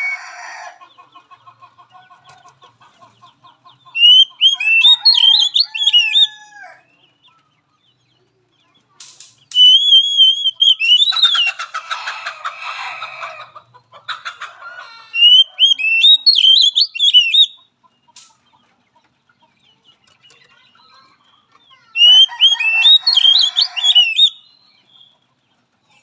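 Oriental magpie-robin singing in four loud bursts of fast, high whistled notes mixed with harsh rasping ones, with quiet pauses between them.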